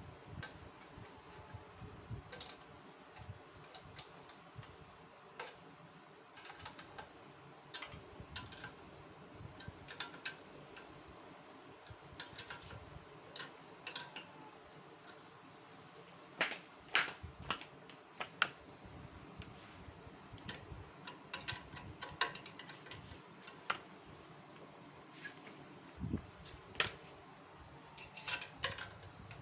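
Hand tools working metal fasteners as an exhaust muffler is bolted onto a motorcycle: scattered sharp metal clicks and short runs of rapid clicking, over a faint steady hum.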